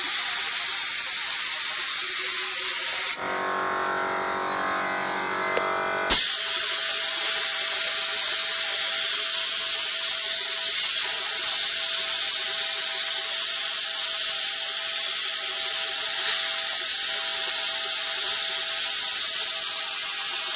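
Paint spray gun hissing steadily as it sprays a fine mist. About three seconds in the spray stops for about three seconds, leaving a quieter steady mechanical hum, then cuts back in with a sharp burst.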